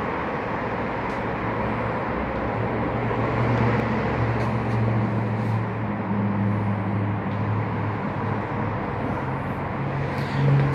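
Electric motor of a motorized treatment table running steadily, a low hum that wavers slightly in pitch under an even whir, as the table raises the patient.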